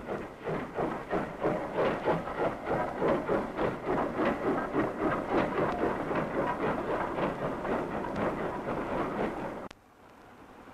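Steam locomotive hauling a loaded freight train, its exhaust beating in a quick, steady rhythm, several beats a second. The sound cuts off suddenly near the end.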